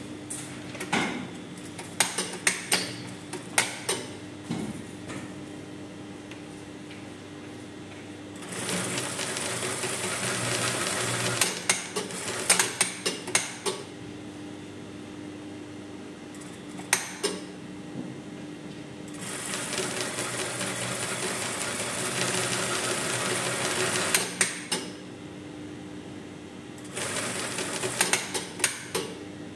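Brother industrial single-needle sewing machine stitching in two long runs of several seconds each, with clusters of short sharp clicks between the runs, over a steady low hum.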